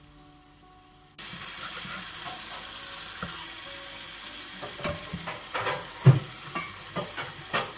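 Chicken breast fillets sizzling in hot oil in a frying pan; the sizzle starts abruptly just over a second in. Metal tongs knock and scrape against the pan several times in the second half as the fillets are laid in and turned, the loudest knock about six seconds in.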